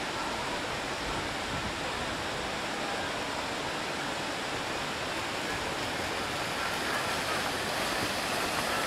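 A fountain jet falling back into a pond: a steady rush of splashing water.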